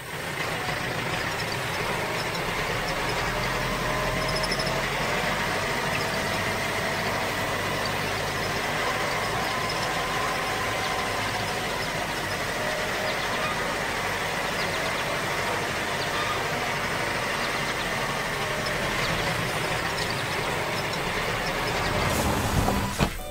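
Large truck engine running steadily as the truck drives.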